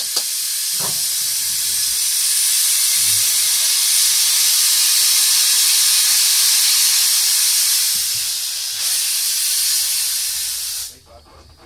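Narrow-gauge steam locomotive standing still and venting steam in a loud, steady, high hiss with no exhaust beats, which cuts off suddenly near the end.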